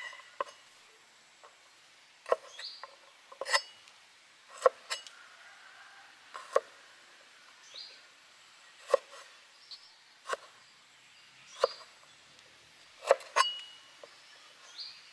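A heavy cleaver chopping on a wooden cutting board, cutting chillies and a fresh root: single sharp knocks at an uneven pace, about one a second.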